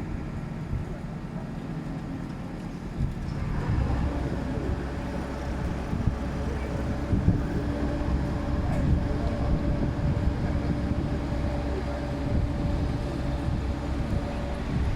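A large vehicle engine running steadily with a low rumble and a steady hum. It grows louder about three and a half seconds in.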